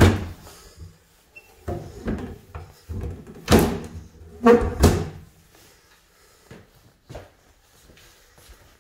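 Wooden doors with metal bar pull handles being opened and shut: a series of knocks and clatters, the loudest between about three and a half and five seconds in, then a small knock near the end.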